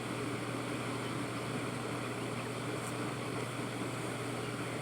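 Electric fan running steadily: an even rushing noise over a constant low hum.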